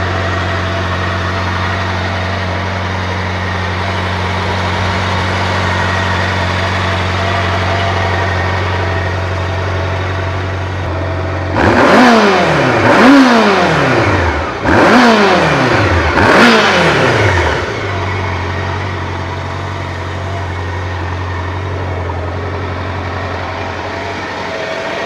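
2003 Honda CB750 Nighthawk's air-cooled inline-four idling steadily, then blipped four times on the throttle about halfway through, each rev rising quickly and falling back before it settles to idle again. The engine has a distinct whir, typical of its hydraulic valve adjusters.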